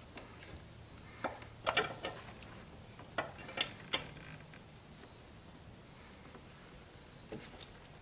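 Scattered light metallic clicks and clinks of a hand wrench working the brake-line compression fittings on a brake master cylinder as they are tightened. A few clicks come about a second in, more around three to four seconds in, and faint ones near the end.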